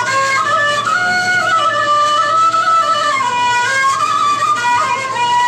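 Traditional music: a melody played on a flute-like wind instrument, moving in steps between held notes over a lower accompanying line.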